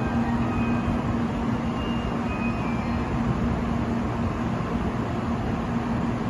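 N700-series Shinkansen standing at the platform with its onboard equipment running: a steady mechanical hum with a constant low drone and no change in pitch.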